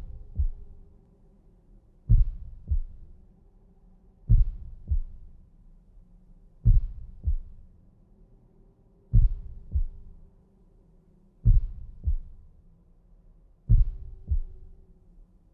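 Heartbeat, a slow, even rhythm of paired lub-dub thumps. A new pair comes about every 2.3 seconds, seven in all, with the second thump following about half a second after the first. A faint hum wavers underneath.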